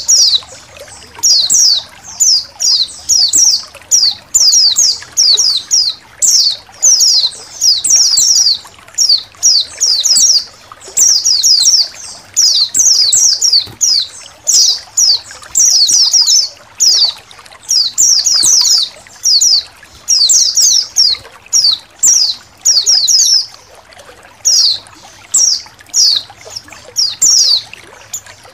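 A flock of white-eyes (pleci) chirping continuously in quick clusters of high, thin, downward-sweeping notes, with short gaps between clusters. A faint trickle of water runs underneath.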